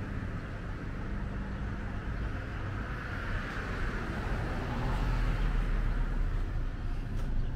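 Street traffic: a passing car's tyre and engine noise swells through the middle and fades, over a steady low rumble.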